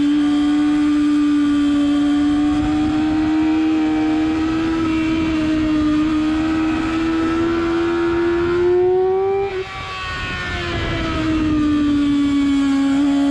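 Sport motorcycle engine running hard at high revs, its pitch creeping slowly upward, with wind rush at speed. About ten seconds in the engine note cuts off suddenly for about a second as the throttle is shut, then comes back and its pitch sinks.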